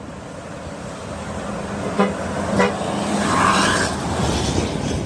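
Bus horn greeting as a bus goes by: two short toots about two seconds in, then the tone held for about another second, over the rising rush of the passing bus.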